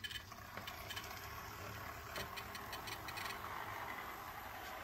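HO scale model locomotive chassis running along the track, its Walthers Proto GP20 motor driving the Atlas GP40 trucks through universal joints: a steady whir with fast ticking and rattling. The owner suspects dirty wheels and thick lube in the trucks are holding it back.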